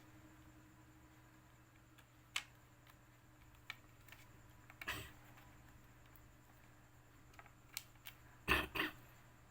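Small, scattered clicks and knocks of laptop parts being handled during a RAM and SSD swap, with a louder quick double knock near the end, over a faint steady hum.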